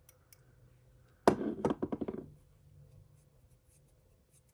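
Small pieces of costume jewellery clattering together: a quick burst of rapid clicks and rattles lasting about a second, starting just over a second in, with a few faint ticks around it.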